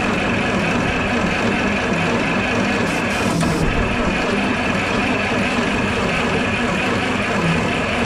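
Oliver 525 combine's gasoline engine being cranked over steadily by its starter with the choke pulled out, turning over without catching.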